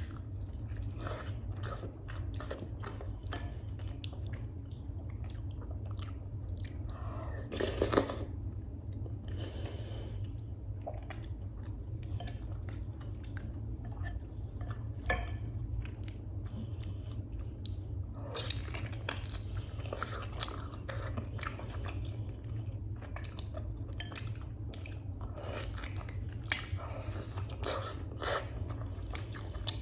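Close-miked chewing and mouth sounds of someone eating freekeh with beef: irregular wet clicks and soft crunches, with one louder burst about eight seconds in, over a steady low hum.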